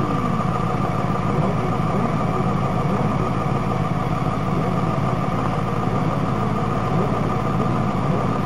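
Single-seater race car's engine idling steadily, picked up close by the car's onboard camera, with faint revving from other engines now and then.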